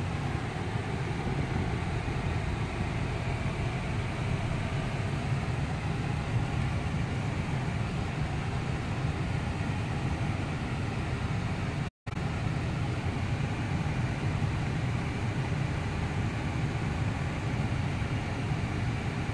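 Steady road and engine rumble of a moving car heard from inside its cabin, with a brief dropout to silence about twelve seconds in.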